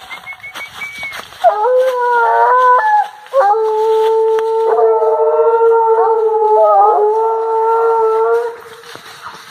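A pack of American-type hunting hounds baying in drawn-out howls, with more than one voice overlapping. There is a short howl about a second and a half in, then one long howl of about five seconds that breaks off near the end.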